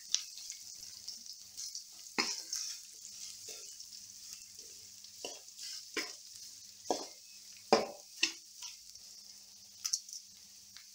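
Shallots, garlic and green chillies frying in oil in a metal pan with a light sizzle, being sautéed until soft, while a metal spoon scrapes and stirs against the pan in irregular strokes.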